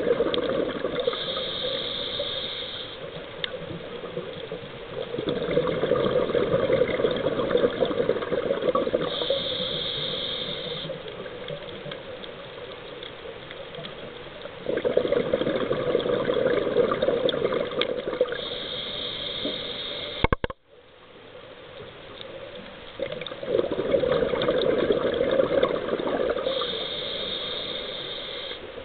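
A scuba diver's regulator breathing underwater: a rush of exhaled bubbles alternating with a high hiss of inhalation, four breaths at about eight to nine seconds apart. A sharp click comes about two-thirds of the way through.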